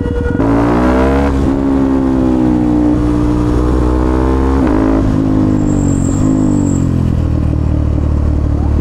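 KTM Duke 390 (third generation) single-cylinder engine pulling under acceleration while being ridden. Its pitch climbs over the first second, then holds fairly steady with a couple of brief dips.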